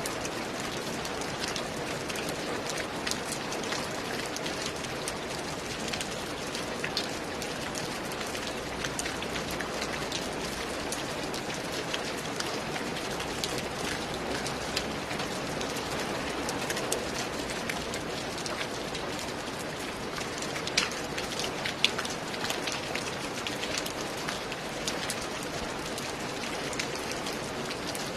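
Steady rain falling on a roof, an even hiss with many individual drops ticking; a few louder drop hits stand out about three-quarters of the way through.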